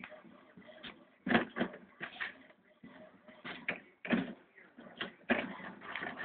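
Printer running a print job: irregular mechanical whirs and clacks in short bursts.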